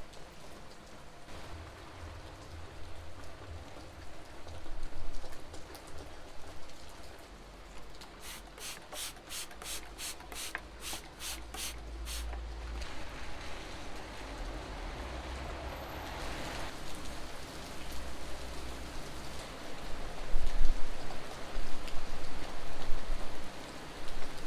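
Steady rain falling, with a low rumble underneath. A third of the way in comes a quick run of about ten sharp clicks, and near the end some louder uneven knocks.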